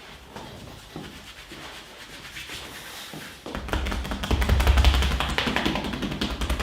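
Barber's hands working a massage: a few soft taps and rubs, then from about halfway a fast, loud run of rhythmic tapping, like quick chopping strokes of the hands.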